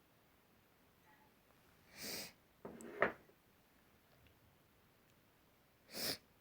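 A person sneezing: a sharp noisy breath about two seconds in, then a sneeze a second later that peaks sharply, and another burst of breath near the end.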